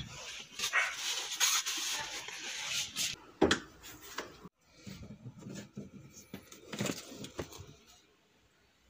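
Rustling and handling of belongings inside a car, with a sharp knock about three and a half seconds in. Scattered clicks and knocks follow as things are moved around the boot and spare-tyre well, then it goes quiet near the end.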